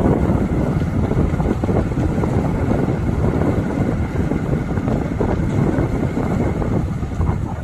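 Steady loud low rumble of vehicle noise mixed with wind buffeting the microphone.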